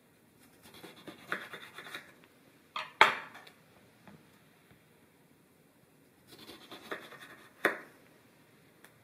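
A knife slicing through lemons on a wooden cutting board, heard as a rasping cut twice. Sharp knocks on the board follow each cut, the loudest about three seconds in and another near the end.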